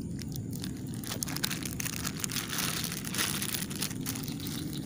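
Thin plastic bag holding small live bait fish crinkling and crackling as it is handled and twisted open, densest around the middle.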